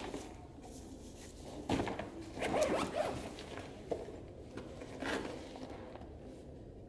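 A zipper being pulled in short strokes, a few quick ones about two seconds in and another around five seconds.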